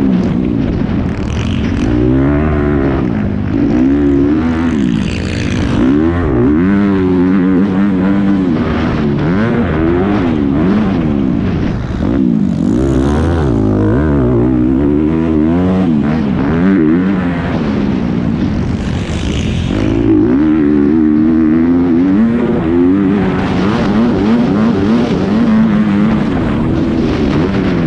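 Motocross bike engine at race pace, heard from the rider's helmet camera, its note rising and falling over and over as the rider accelerates, shifts and shuts off through the track's jumps and corners.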